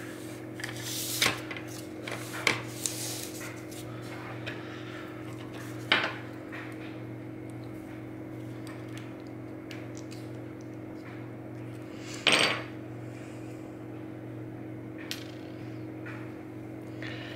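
Small metal clicks and taps from a Goal V18 dimple lock cylinder being taken apart by hand, its plug and pin parts handled over a tray. A handful of sharp knocks stand out, the loudest about six and twelve seconds in, over a steady low hum.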